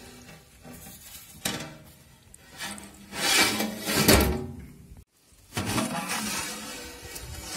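Metal lid of a large aluminium cooking pot scraping and knocking against the rim as it is handled and lifted off with a cloth.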